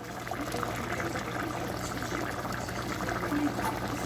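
Pot of brown stew chicken simmering: a steady crackle of many small bubbles popping in the sauce.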